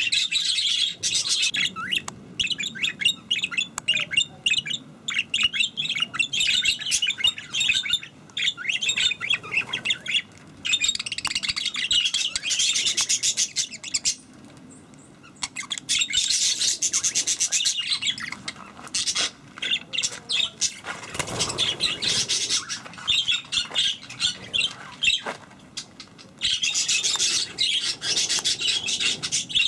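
A flock of budgerigars chattering and warbling, a dense stream of quick, high chirps broken by a few short lulls, the longest about fourteen seconds in.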